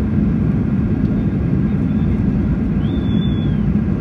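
Cabin noise of a Ryanair Boeing 737-800 rolling on the ground: a loud, steady low rumble of engines and undercarriage. A short high tone rises, holds and falls about three seconds in.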